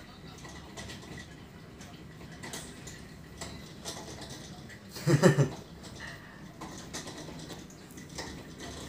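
A spoon scraped in repeated strokes over oiled skin on a man's back during kerokan (Indonesian coin-rubbing), giving a faint scratchy rubbing. A brief voice sound about five seconds in is the loudest moment.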